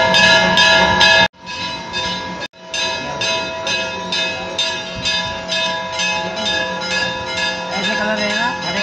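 Temple bells ringing, struck over and over about twice a second so the ringing tones hang on steadily. The sound drops out briefly twice in the first three seconds.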